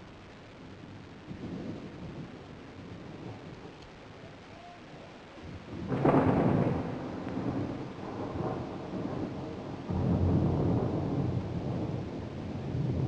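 Thunderstorm on an old film soundtrack: steady rain hiss with a sudden loud thunderclap about six seconds in that rumbles away, and a second deep rumble of thunder about ten seconds in.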